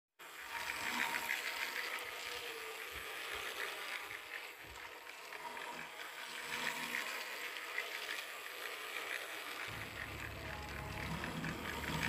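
Battery-powered plastic toy train running around a plastic track, its small motor and gears giving a steady rapid clicking rattle. A low rumble joins in near the end.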